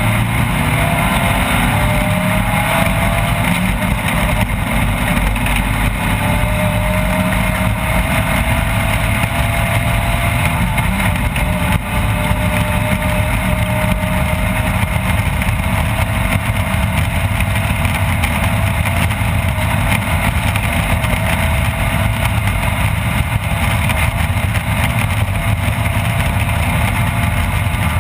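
Off-road race vehicle's engine running under way, loud and steady, along with a continuous rumble of running gear. The engine pitch climbs over the first few seconds, then holds nearly level with a slow rise.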